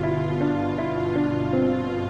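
Background music: a calm instrumental track with sustained notes that change every half second or so.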